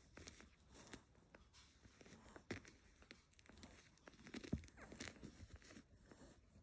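Faint, irregular wet clicks and soft smacks of a three-day-old Yorkshire Terrier puppy suckling milk at its mother's teat, the sharpest click about four and a half seconds in.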